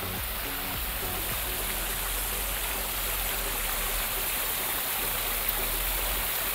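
Fountain water splashing and falling in a steady, even rush.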